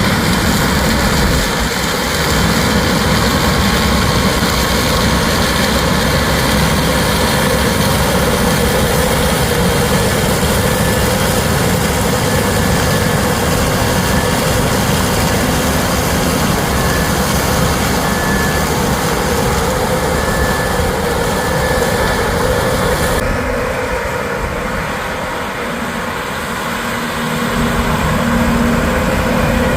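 Heavy engine of harvest machinery running steadily. About three-quarters of the way through the sound changes abruptly, dipping in loudness before building again.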